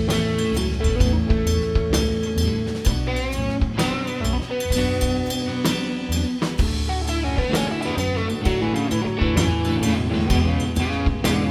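A band playing an instrumental break without vocals: a drum kit keeping a steady beat under held melodic notes, likely a guitar lead.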